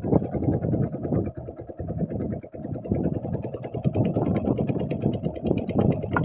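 Small fishing boat's engine running steadily, under rough, uneven low rumbling noise.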